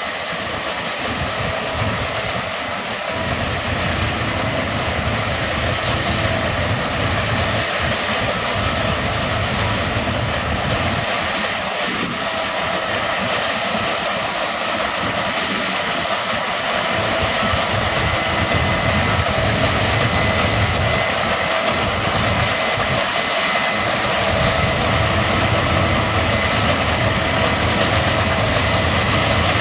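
Case combine harvester running steadily while harvesting barley: a dense, continuous machinery noise with a few thin, steady whining tones, growing slightly louder about halfway through.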